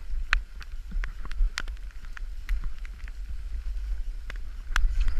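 Footsteps pushing through wet brambles and undergrowth: wind rumbling on the microphone, with scattered sharp ticks and snaps about once or twice a second.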